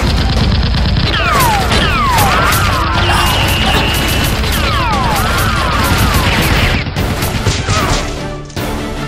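Loud, rapid gunfire sound effects and impacts over action music, with several falling whistle-like glides; the shots thin out near the end.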